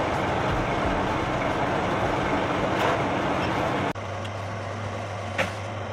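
Refrigeration condensing unit running with its replacement Dorin H80CC compressor: a steady dense whirr with a low hum underneath. Just under four seconds in it cuts off abruptly, leaving a quieter steady low hum.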